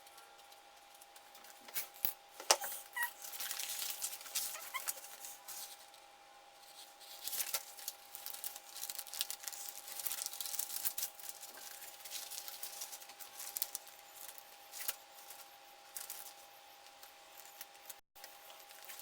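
Thin adhesive wallpaper being handled and cut: irregular bursts of crinkling, rustling and scraping paper with scattered clicks, over a steady faint tone.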